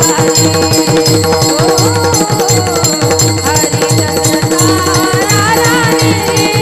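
Varkari kirtan music: women singing a devotional melody in raga Bhairavi while clashing pairs of small brass hand cymbals (taal) in time. A mridang drum keeps a steady beat of about two strokes a second.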